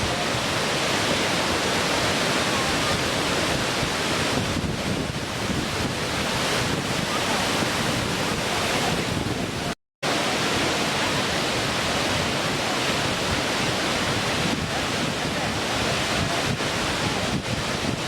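Steady rushing roar of a waterfall. The sound cuts out completely for a split second about ten seconds in.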